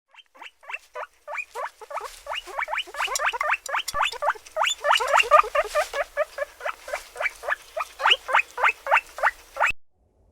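A fast run of short, high animal calls, each falling in pitch, several a second, overlapping as from more than one animal. They stop suddenly just before the end.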